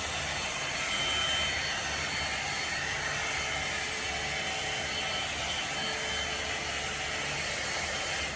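Electric hair dryer or hot-air styler running steadily: an even rush of blown air with a faint high whine, switched off suddenly near the end.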